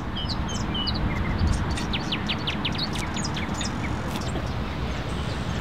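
Small birds chirping in quick, short notes over a steady low rumble of street noise.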